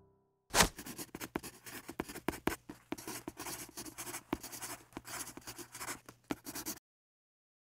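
Pen scratching on paper as it writes a line of text, a rapid run of short scratchy strokes starting about half a second in with a sharp first touch. It stops abruptly near the end.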